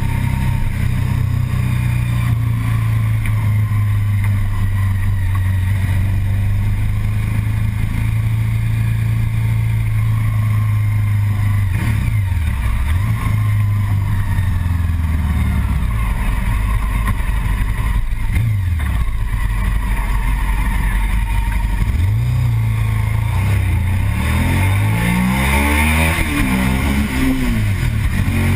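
Motorcycle engine running steadily under way. Its pitch dips and comes back a few times around the middle, then rises and falls repeatedly near the end as the throttle is worked.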